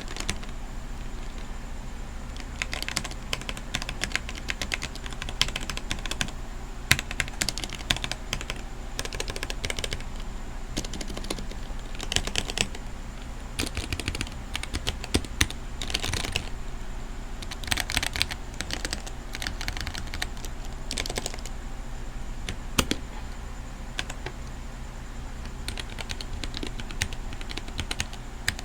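Typing on a Womier K66 60% mechanical keyboard with Gateron red linear switches: keystrokes clatter in fast irregular runs, with short pauses between them.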